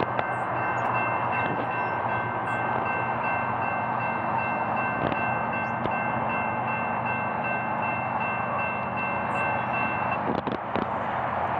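Horn of an approaching BNSF freight locomotive, heard at a distance, held as one long steady chord of several notes that cuts off about ten seconds in.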